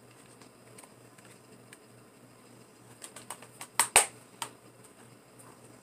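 Plastic Blu-ray case being handled and closed: a few light clicks about three seconds in, then a sharp snap as it clicks shut, with another small click just after.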